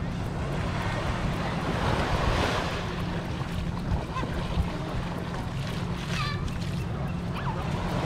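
Small waves washing onto a sandy beach, with wind buffeting the microphone.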